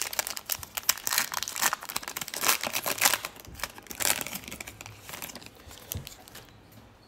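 Foil wrapper of a Panini Prizm football card pack crinkling and tearing as it is torn open by hand. The crackling thins out and fades after about five seconds.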